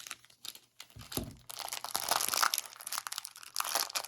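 Plastic wrapper of a baseball card rack pack crinkling and crackling as it is handled and cut open, with a dull knock about a second in.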